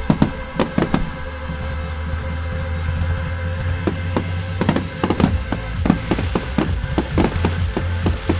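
Fireworks display set to music: irregular sharp bangs, in clusters, over music with a steady deep bass.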